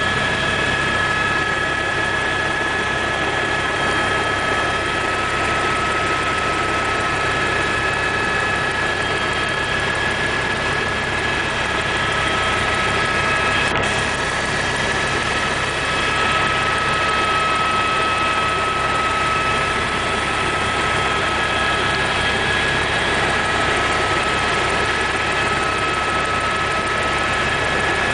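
Helicopter in flight heard from inside the cabin: a steady, dense engine and rotor noise with a high, even whine over it.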